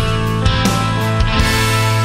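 Background rock music with guitar and drums; about a second and a half in, a cymbal crash and a held chord ring out.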